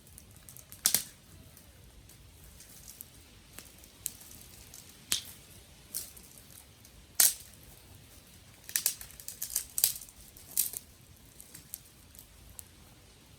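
Dry wood cracking and snapping in sharp, irregular cracks: a few single snaps, then a quick run of them about nine to eleven seconds in.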